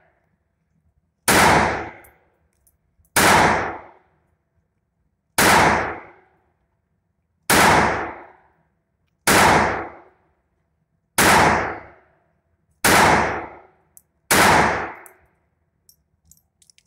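Ruger SR22 .22 LR pistol fired eight times in slow single shots, about two seconds apart. Each shot is a sharp crack with a short ringing tail in the indoor range.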